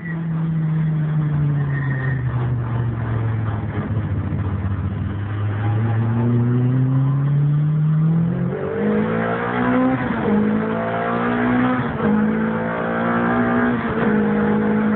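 Renault Clio Williams rally car's 2.0-litre 16-valve four-cylinder engine heard from inside the cabin. It eases off and picks up again, then revs harder from about halfway, climbing in pitch and dropping back at several gear changes about two seconds apart.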